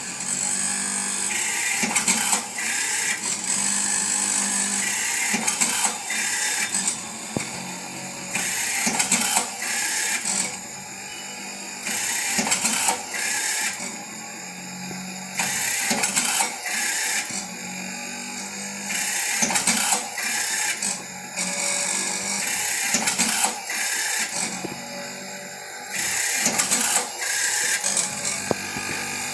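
Automatic cotton wick making machine running, its motor-driven mechanism clicking and clattering through a repeating cycle every few seconds while it turns out wicks.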